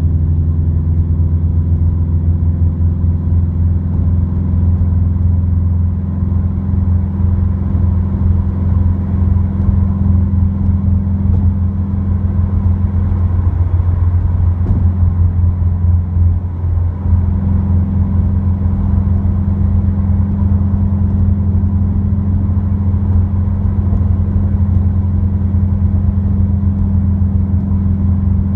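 Subaru WRX with an Invidia N1 dual exhaust, heard from inside the cabin at steady cruise: a steady low exhaust drone over road noise. Its upper tone wavers briefly about halfway through.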